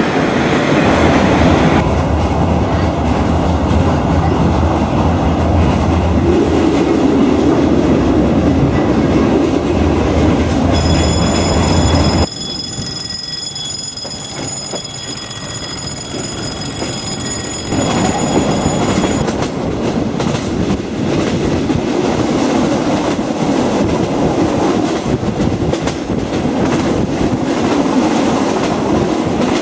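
Reunification Express train running on the rails, a steady rumble and rattle. Partway through, a high-pitched squeal rings for several seconds, and the overall sound drops abruptly quieter for about five seconds before returning.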